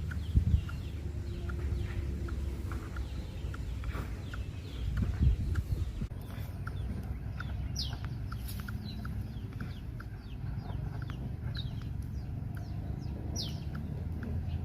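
Birds calling: short chirps repeated about twice a second, joined from about six seconds in by sharp, falling high-pitched calls, over a steady low rumble.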